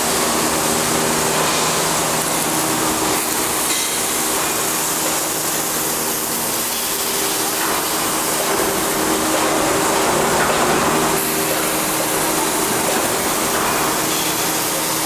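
Welding arc hissing and crackling steadily, with a constant electrical hum underneath.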